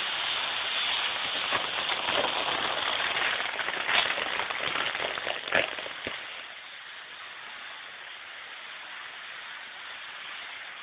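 Fireworks crackling and hissing in a dense shower of sparks, with a few sharp pops about four and five and a half seconds in. After about six seconds it drops to a quieter, steady hiss of spinning fireworks wheels throwing sparks.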